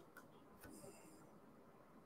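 Near silence: room tone with a few faint clicks in the first second.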